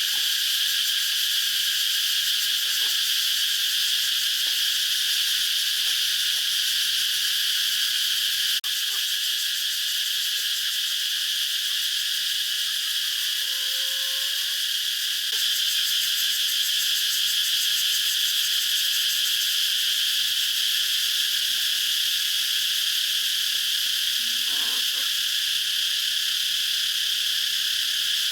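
Dense, steady chorus of insects, a high shrill pulsing that never lets up, with a few faint short calls from other animals underneath. The chorus dips slightly about nine seconds in and picks up again around fifteen seconds.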